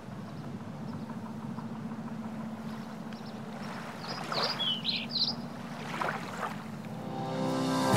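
Outdoor ambience with a steady low rumble and a few short bird calls from about four to six and a half seconds in. Music swells in near the end.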